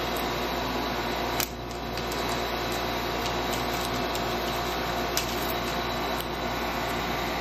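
Steady mechanical hum in the room, with two sharp clicks of a kitchen knife striking the foil-covered cutting surface as it chops a small lemon, about a second and a half in and again a little past five seconds.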